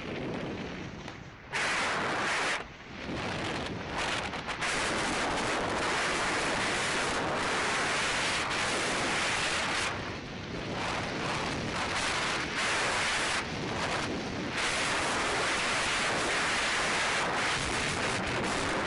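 Wind buffeting a helmet camera's microphone during a downhill ski run, with skis hissing and scraping over hard, tracked snow. The noise is loud and dense and thins briefly now and then.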